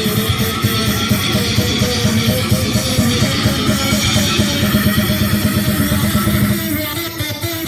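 Loud music with strummed guitar and bass, played through a competition car sound system; the music changes near the end.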